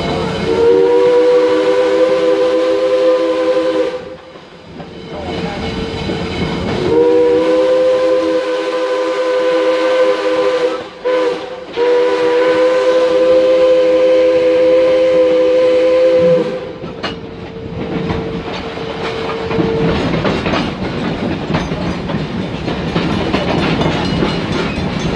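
Steam locomotive No. 643's chime whistle blowing several notes at once: two long blasts, a brief short toot, then a final long blast. After the whistle stops, the train's wheels clatter steadily over the rails.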